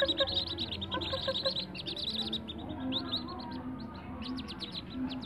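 A brood of whistling duck ducklings peeping: many short, high calls overlapping in a rapid chorus, thinning briefly about four seconds in.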